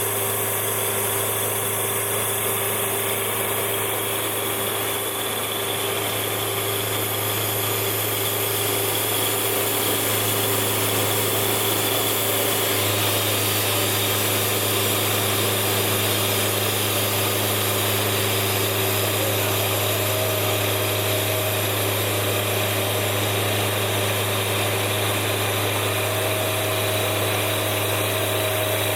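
Sawmill engine running steadily, with a constant low hum, growing slightly louder about ten seconds in.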